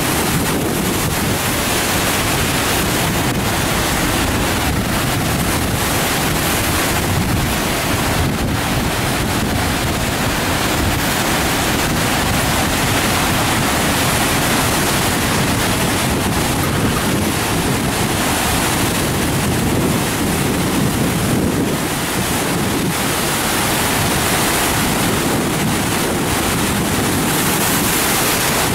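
Missouri River floodwater rushing steadily out of the Gavins Point Dam spillway at a flood release of about 150,000 cubic feet per second, with wind buffeting the microphone.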